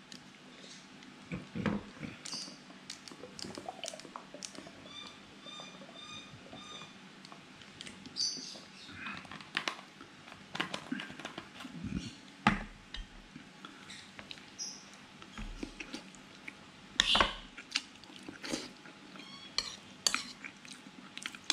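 Eating at a table: chewing, a plastic bottle being handled and capped, and a metal spoon clinking and scraping in a ceramic bowl, with scattered sharp knocks.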